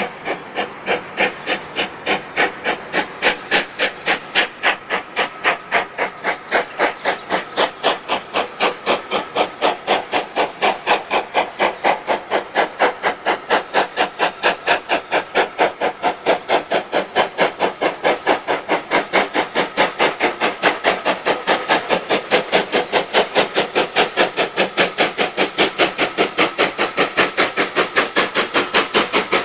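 Steam locomotive working hard as it approaches, its chimney exhaust beating sharply and evenly at about three beats a second. The beats quicken slightly and grow louder as the engine draws near.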